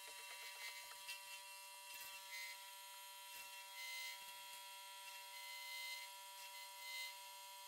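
Wood lathe motor running with a faint, steady whine, with a few soft hissing swells from a gouge cutting the spinning resin and burl blank.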